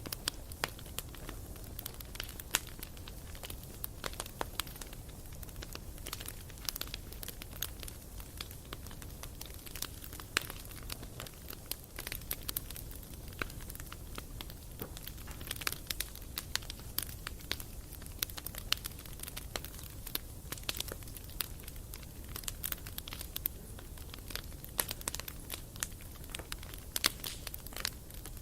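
Wood campfire crackling, with frequent sharp irregular pops and snaps over a low steady rumble.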